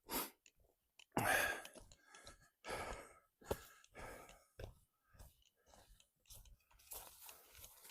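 A hiker's footsteps crunching through dry leaf litter on a trail, roughly one step a second, with breathing between steps.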